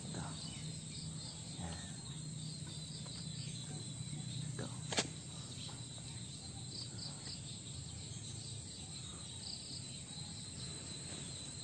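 Faint outdoor background of insects chirping steadily, with a thin high tone and short repeated chirps over a low rumble. A single sharp click sounds about five seconds in.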